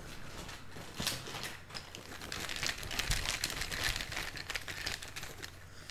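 Rustling and rapid small clicks of cardboard game tokens being handled as a hand rummages to draw a monster token.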